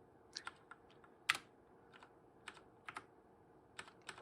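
Computer keyboard keys pressed one at a time at an irregular pace, about ten clicks, typical of stepping through BIOS menus; the loudest press comes a little over a second in.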